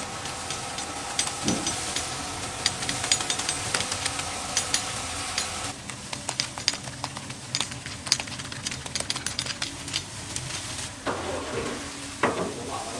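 Pork ribs sizzling and crackling on a smoker grate, with the wet dabbing of a string mop basting sauce onto them. A steady hum underneath stops about halfway through.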